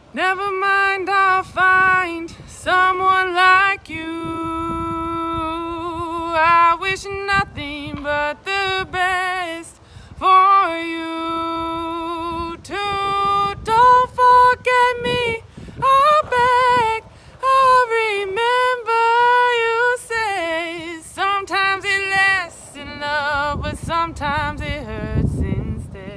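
A woman singing solo without accompaniment, holding long notes with vibrato; the singing trails off near the end.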